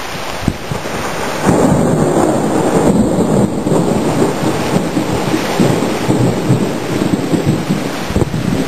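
Heavy thunderstorm: rain pouring steadily, with a long rumble of thunder that comes in about a second and a half in and rolls on, rising and falling.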